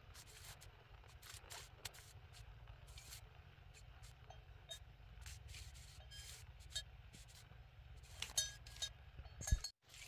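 Scattered light clinks and scrapes at an irregular pace, over a steady low rumble. They come thicker and louder near the end, with a sharp knock just before a brief cut in the sound.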